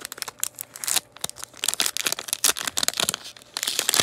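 Clear plastic packaging sleeve crinkling and crackling in flurries as a stack of paper ephemera pieces is worked out of it by hand.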